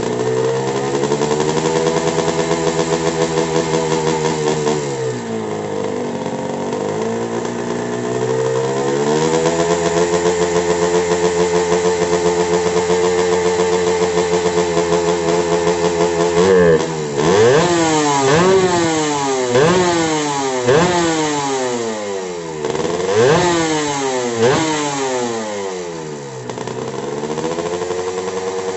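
Suzuki TS 150 R's two-stroke single-cylinder engine running on the freshly assembled bike. It idles, sags and picks up again, then is revved in a string of quick throttle blips, each rising and falling sharply, before dropping back to idle near the end.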